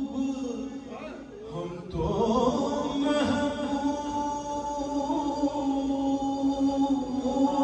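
A man chanting a Punjabi naat, holding long drawn-out notes, with a new phrase beginning about two seconds in.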